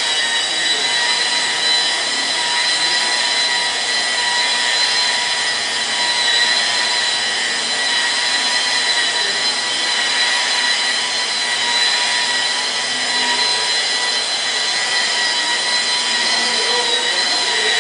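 Hand-held power tool, a sander or buffer, run steadily against a car's hood: a constant high whine over hiss.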